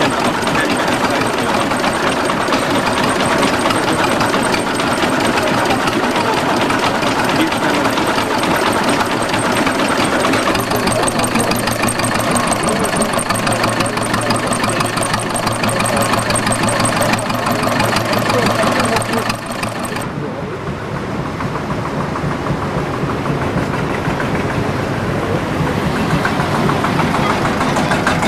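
Old engine running with a fast, regular beat. About two-thirds of the way through the sound turns duller and a little quieter.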